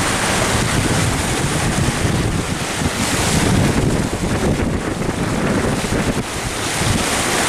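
Wind buffeting the microphone on a sailboat under sail, a loud, unsteady rumbling rush.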